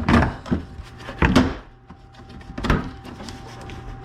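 Knocks and rattles of parts being handled: three short clattery bursts a little over a second apart, over a faint steady hum.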